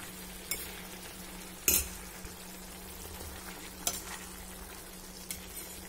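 Steel spoon stirring diced pumpkin in a stainless steel pan over a steady sizzle, mixing in jaggery so it melts. The spoon clinks against the pan four times, loudest about two seconds in, over a faint steady low hum.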